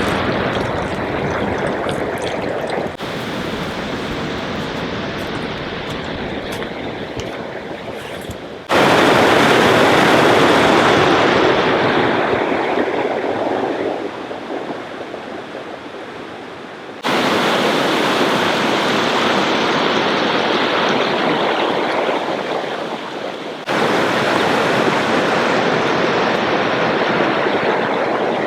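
Rushing river water, a loud steady rush of rapids. Its level and tone change abruptly four times, louder and fuller from about nine seconds in, quieter toward the middle, then loud again.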